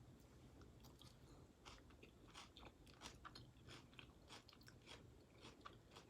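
Faint close-up chewing and crunching of a salad with lettuce and cucumber: many short, irregular crunches.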